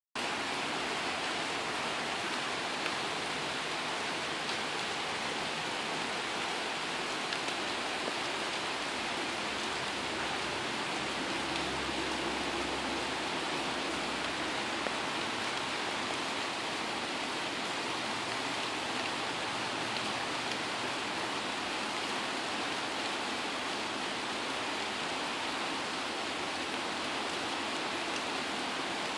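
Steady rain falling on trees, a dense even patter of drops on leaves. A faint low rumble swells briefly around the middle.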